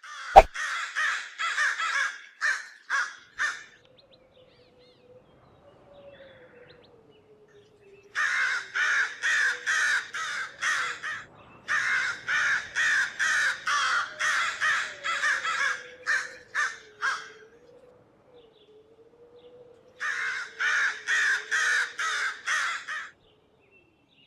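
A bird giving harsh, raspy calls in rapid series of about three a second, in four bouts separated by short pauses.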